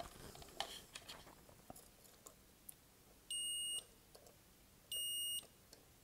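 Multimeter continuity buzzer beeping twice, a steady high beep of about half a second each, a second and a half apart, as the probes bridge the terminals of a refrigerator thermostat: the beep means the contacts are closed and conducting. A few faint taps come before the beeps.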